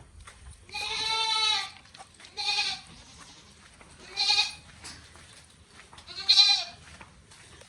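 Goat bleating four times, wavering calls with gaps between them; the first is about a second long and the last is the loudest.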